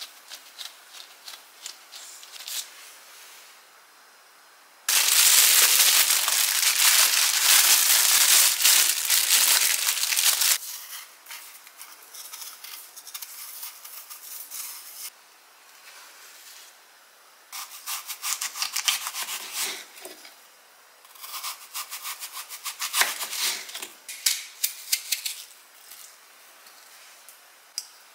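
Close-up kitchen handling sounds: light ticks and rubbing of gloved hands on puff pastry dough, then a serrated knife scraping through apple peel and flesh. The knife sound comes as one long loud stretch and several shorter crackly bursts.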